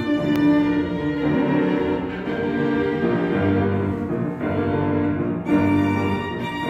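Violin and grand piano playing classical music together: the violin holds long bowed notes over the piano accompaniment.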